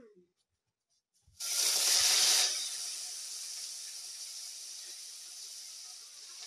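Wet leafy greens dropped into a hot metal pot on a wood fire: a sudden loud sizzle about a second in, loudest for about a second, then settling into a steady, slowly fading sizzle as the water on the leaves turns to steam.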